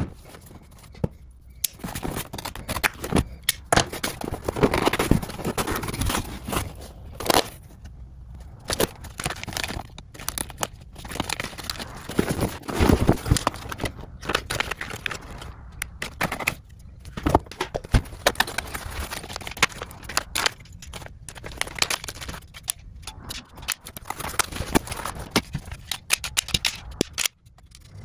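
Packaging being handled and opened: cardboard and plastic rustling and crinkling, broken up by many irregular sharp clicks and knocks of hard plastic and metal parts.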